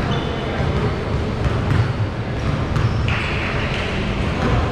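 Basketball being played in a large, echoing gym: short high sneaker squeaks on the hardwood floor and the ball bouncing.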